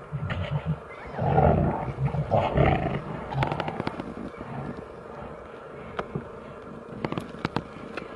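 Brown bears growling: a rough, pulsing low growl that swells loudest between about one and three seconds in, then dies down to quieter rumbling. A few sharp clicks come in the later half.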